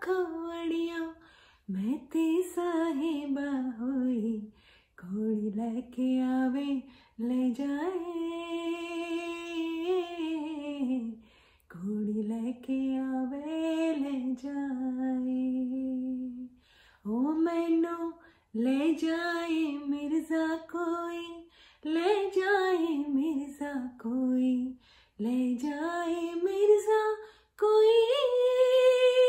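A woman singing solo and unaccompanied: sung phrases of a few seconds each, some ending on long held notes, with brief breaths between them.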